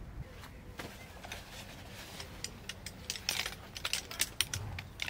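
Light clicks and clinks of tent poles and camping gear being handled while a tent is pitched. There are only a few at first, then they come thick and fast over the last two seconds.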